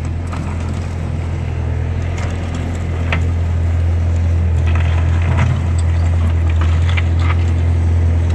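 Skid steer engine running steadily, with scattered crunching and scraping of stone on top.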